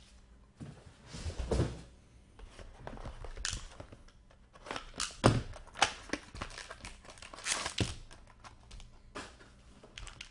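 Unwrapping and opening a sealed box of hockey trading cards: wrapper crinkling and tearing, with scattered clicks and knocks of the box being handled, a few of them louder.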